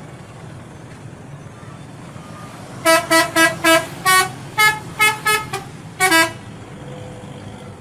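A bus's multi-tone 'telolet' musical horn plays a quick tune of about ten short, loud notes that change in pitch, starting about three seconds in. Steady traffic noise runs underneath.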